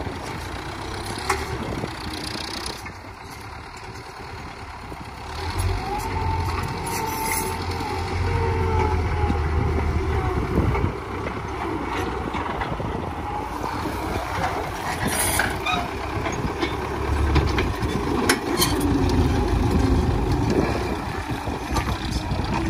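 Farm tractor engine running as it pulls a plough through the soil, growing louder about five seconds in.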